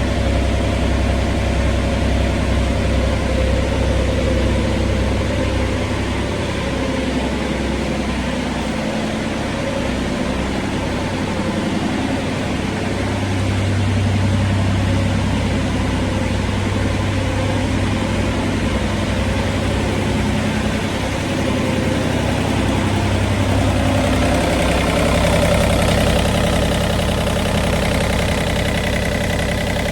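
Diesel engine of a John Deere 35G mini track excavator running steadily, its tone and level shifting a few times.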